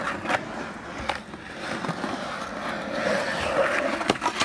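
Skateboard wheels rolling and carving across a concrete bowl, the rolling growing louder about three seconds in, with a few short clacks from the board.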